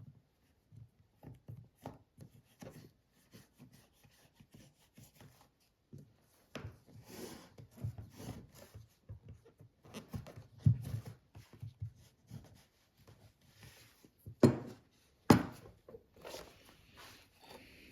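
Hand work on a leather boot in a small workshop: short scrapes, rubs and clicks, getting busier partway through, with two sharp knocks a little under a second apart near the end.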